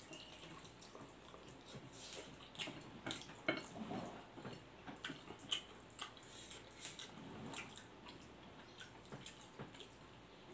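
Faint, wet chewing and slurping of noodles eaten with chopsticks: scattered small smacks and clicks of the mouth, somewhat busier a few seconds in.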